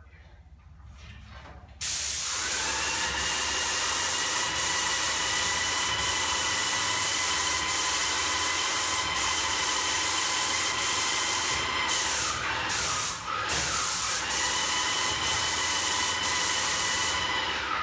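Airless spray gun spraying acrylic eggshell paint: a loud steady hiss with a high whistle, starting suddenly about two seconds in as the trigger is pulled, breaking off briefly a few times about two-thirds of the way through, and stopping near the end.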